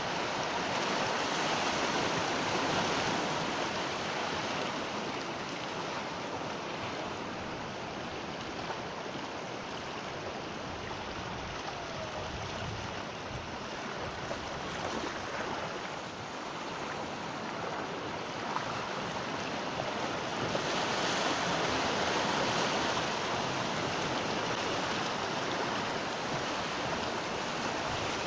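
Ocean waves breaking and washing on the shore, a continuous surf noise that swells louder twice, about two seconds in and again about two-thirds through.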